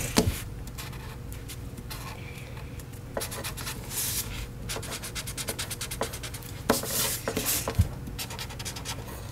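Felt-tip markers stroking across paper in quick, irregular strokes, with a few light taps.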